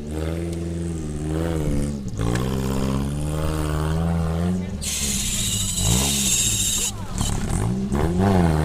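Off-road 4x4 vehicle engine running steadily, with people's voices over it and a loud hissing rush lasting about two seconds near the middle.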